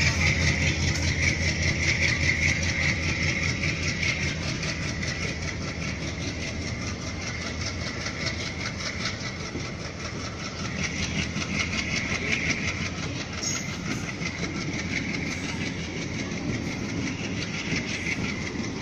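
Passenger train coaches rolling steadily past along a station platform, the wheels clacking over the rail joints.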